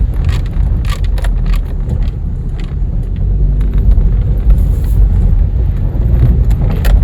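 Low rumble of a 2011 Kia Rio driving slowly over an obstacle, with a few short clicks in the first second and a half. The front suspension gives no squeak, its strut bump stops freshly lubricated.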